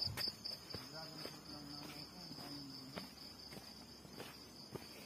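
Insects chirring in a steady, pulsing high-pitched trill, with scattered footsteps on a dirt path.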